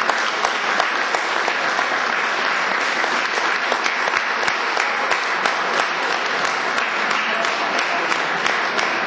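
Steady applause from a room full of people, many hands clapping without a break.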